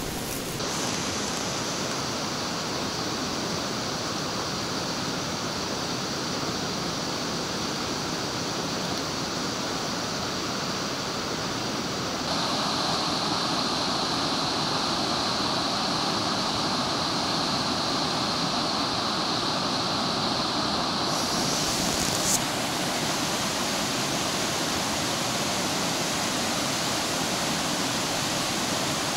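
Mountain river rushing over rocks: a steady rush of water that gets louder and brighter about twelve seconds in, with one brief knock near 22 seconds.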